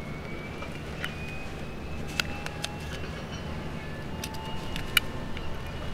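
Hands loading Pez candies into a plastic Pez dispenser: a few sharp clicks, the loudest about five seconds in, with light handling noise, over a steady low hum of traffic.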